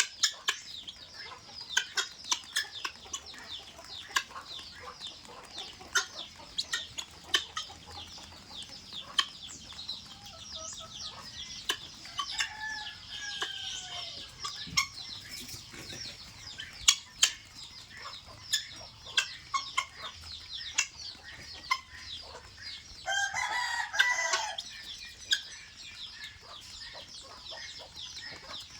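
A flock of guinea fowl calling and chattering while feeding: rapid high chirps throughout, with scattered sharp clicks. About 23 seconds in comes one loud harsh call lasting over a second.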